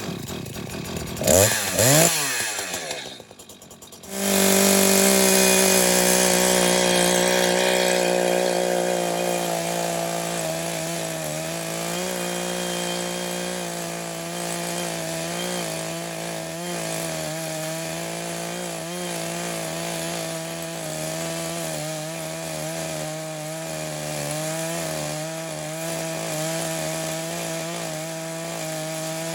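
Echo CS-590 two-stroke chainsaw with a ripping chain, revved up and down briefly, then held at full throttle from about four seconds in. It runs at a steady pitch while it rip-cuts a red oak slab in a homemade chainsaw mill.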